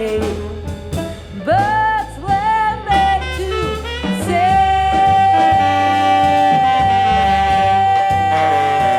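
Jazz quintet playing live: voice, tenor saxophone, piano, double bass and drums. Short rising-and-falling melodic phrases come first, then a single long held note begins about four seconds in.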